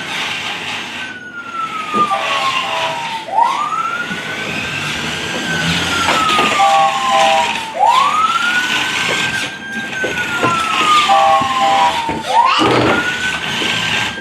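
Electronic toy fire-truck siren wailing over and over, about every four and a half seconds. Each wail rises quickly, holds briefly, then falls slowly, and a short horn-like beep comes between wails.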